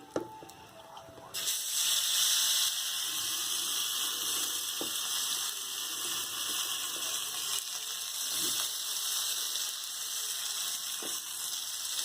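Marinated seer fish frying in ghee in a pan, a steady sizzle that starts abruptly about a second in and carries on evenly, with a few light taps from the pan.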